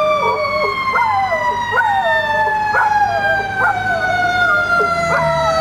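Fire truck siren holding one long tone that slowly falls in pitch, while a dog howls and yelps along with it in short, falling cries about once a second.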